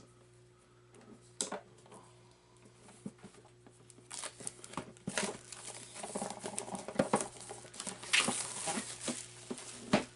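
Cardboard board-game box being handled and turned over by hand, with scraping, tapping and crinkling. A few scattered clicks at first, then busier, continuous rustling with sharp taps from about four seconds in.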